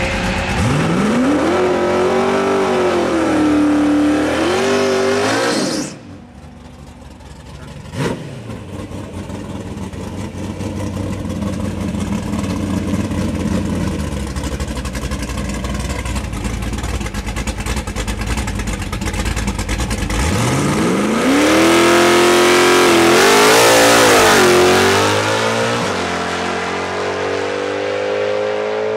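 Naturally aspirated V8 of a 1989 Ford Mustang LX drag car, revved up and held high with wavering pitch during a burnout, then cut off suddenly. It runs steadily at low revs while the car rolls up to stage, and about twenty seconds in it launches, the engine note climbing sharply and at its loudest as the car accelerates hard down the strip, then easing as it pulls away.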